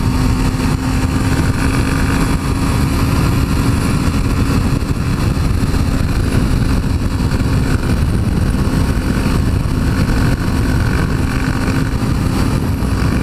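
Heavy wind buffeting on the microphone over a 2002 Suzuki GSX-R600's inline-four engine cruising at a steady speed, its tone holding one pitch under the wind.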